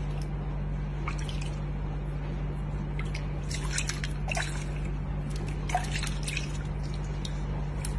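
Water dripping and splashing in irregular small drops over a steady low hum.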